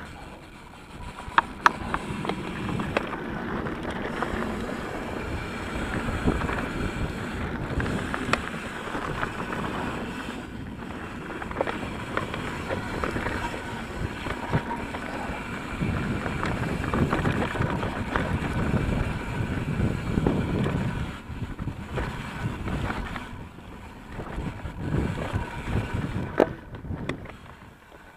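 Riding noise of an Ibis Mojo HD3 full-suspension mountain bike on rocky dirt singletrack: wind buffeting the action camera's microphone over tyre rumble, with sharp clicks and rattles from the bike over rocks. It eases briefly about three-quarters through and drops away near the end.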